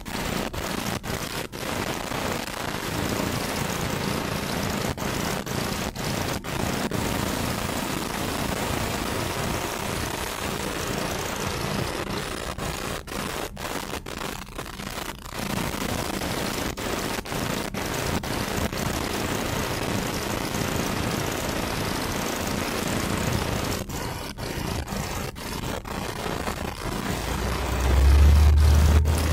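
Steady road and engine noise heard inside a moving car's cabin, with a deeper rumble swelling near the end.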